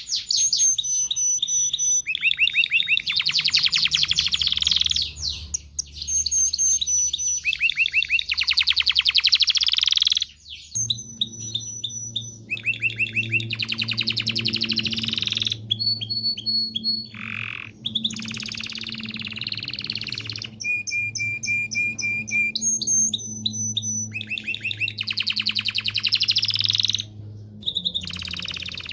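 Canary singing a long song of fast rolling trills and runs of repeated notes, each phrase at a different pitch, with brief pauses between phrases. From about a third of the way in, a faint low hum runs underneath.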